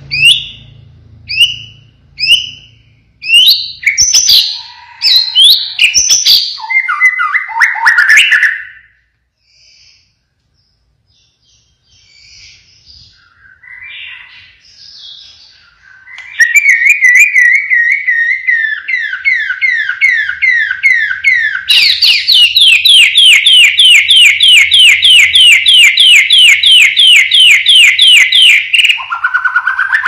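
Pied ('blorok') white-rumped shama, the murai batu, singing loudly. It opens with three short falling whistles about a second apart and varied phrases, pauses briefly, then from about halfway pours out a long, very fast run of repeated sharp notes, the rapid 'tembakan' volley, which ends just before the close with one lower note.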